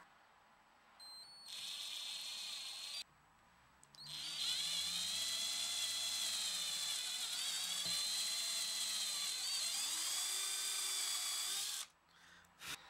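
Electric drill boring rivet holes through an oak knife-handle scale. It runs briefly for about two seconds, stops, then runs steadily for about eight seconds with a high whine.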